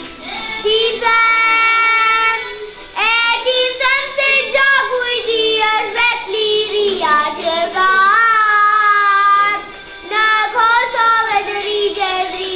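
A young girl singing solo into a microphone, in phrases with long held notes that waver slightly, with short breaths between phrases about 3 seconds in and again near 10 seconds.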